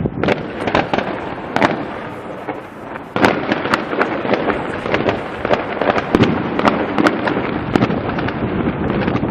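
Fireworks display going off: a continuous crackle of overlapping pops and bangs. The loudest bang comes about three seconds in.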